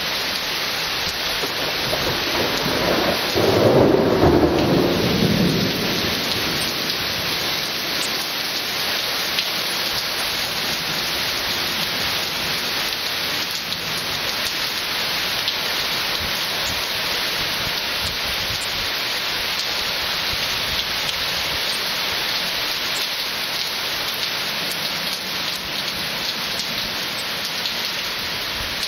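Heavy rain falling steadily, with one roll of thunder that builds about three seconds in, is loudest around four seconds and fades by six.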